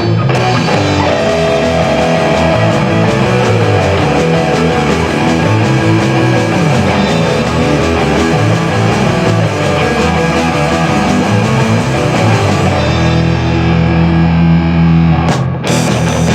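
Rock band playing, with electric guitar to the fore and keyboard in the mix, loud and continuous, with a brief break near the end.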